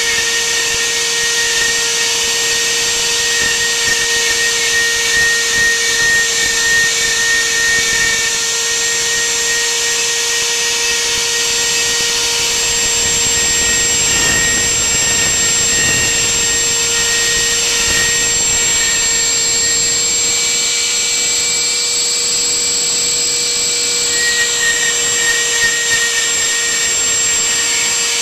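Spindle of a homemade CNC router running at speed while its bit carves a groove into a wooden board: a steady whine over a constant hiss of cutting.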